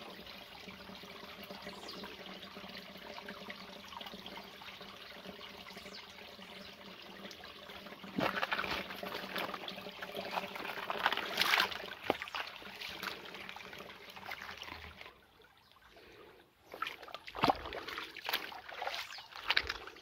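Shallow stream trickling over stones, getting louder and more uneven from about eight seconds in. Near the end come a few sharp knocks.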